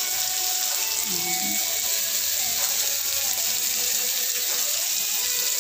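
Sliced bitter gourd and onions sizzling steadily in a hot wok on a gas burner.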